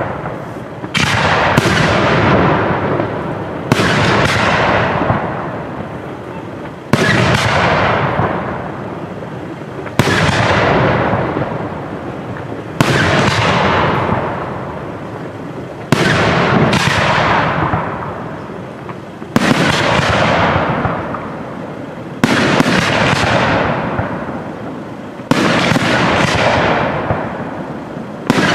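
Aerial firework shells bursting in a steady sequence, a sharp bang about every three seconds, some as quick double or triple reports, each trailing off slowly before the next.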